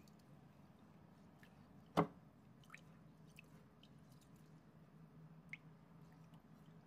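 Hand washing glutinous rice in a glass bowl of water: faint small drips and plinks of water as the rice is rubbed and stirred. One sharp knock about two seconds in is the loudest sound.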